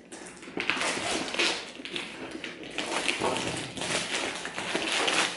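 Retail box of an external hard drive being opened by hand: irregular rustling and scraping with scattered taps of packaging.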